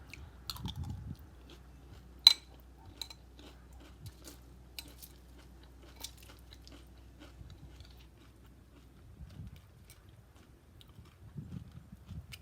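Close-up chewing and crunching of a mouthful of cereal, with scattered small clicks and one sharp click about two seconds in.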